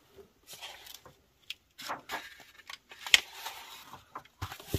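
Old books and papers being handled and shifted on a shelf: scattered light knocks, taps and rustles, with one sharper click about three seconds in.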